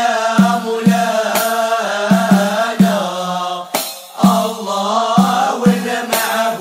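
Issawa Sufi devotional music: chanting voices holding drawn-out, wavering melodic lines, punctuated by regular drum strokes.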